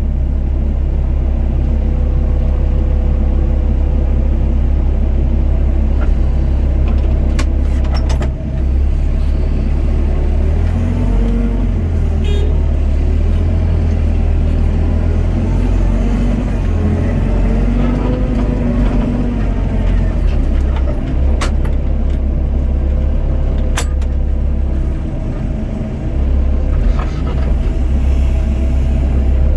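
Doosan DX55 mini excavator's diesel engine running steadily under working load. Its pitch shifts up and down for a stretch midway, and there are a few sharp knocks.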